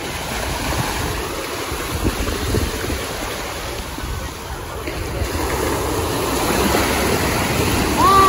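Small waves washing in shallow sea water, with wind buffeting the microphone.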